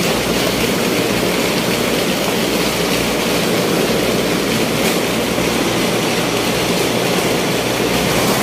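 Ice-making machinery in an ice plant running with a loud, steady noise.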